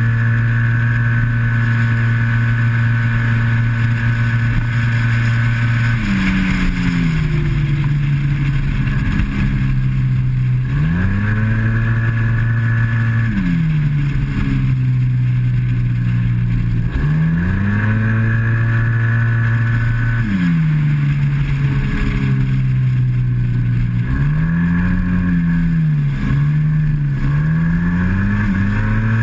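Yamaha TMAX maxi-scooter's parallel-twin engine ridden hard on track: the CVT holds it at a steady high pitch along the straights, and several times the pitch drops as the throttle closes for a corner, then climbs back as the rider opens it again.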